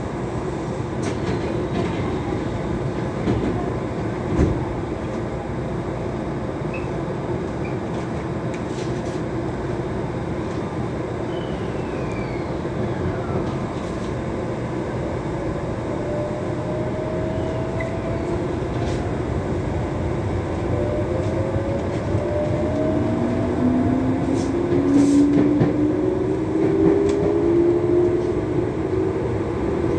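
Electric commuter train running, a steady rumble of wheels and motors. Over the last dozen seconds several whines rise in pitch as it picks up speed.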